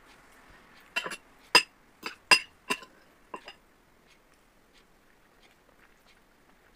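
Metal spoon and fork clinking against a glass serving bowl, about eight sharp clinks over two and a half seconds, as food is scooped up.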